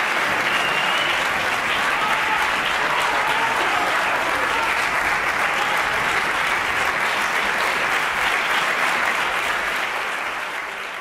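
Concert audience applauding, a dense steady clapping that fades out near the end.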